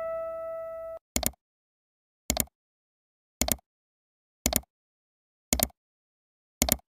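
Animated-intro sound effects: an electronic chime rings on and cuts off abruptly about a second in, then six short, sharp pops follow at an even pace, about one a second.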